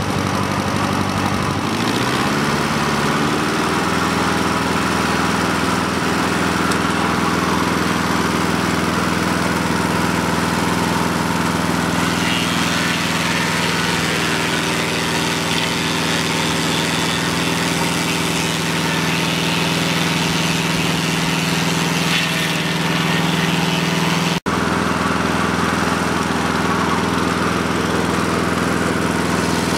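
Old Volkswagen engine driving a Mobile Dimension portable sawmill, speeding up over the first couple of seconds and then running loud and steady as the circular saw blades cut through a cedar log.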